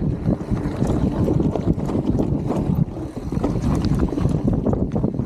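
Mountain bike riding fast down a dirt trail: tyres rumbling over the ground and the bike rattling with many small knocks, with wind buffeting the camera microphone.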